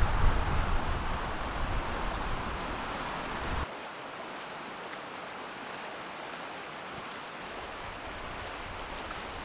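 Steady rush of a flowing river, with wind buffeting the microphone as a low rumble for the first three and a half seconds or so, which stops suddenly and leaves a quieter, even rush of water.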